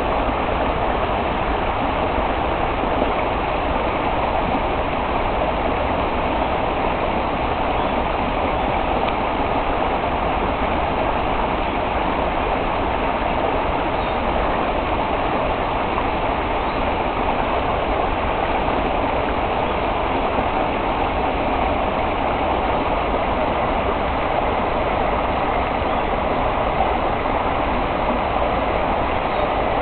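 Steady rush of a flowing stream, even and unbroken.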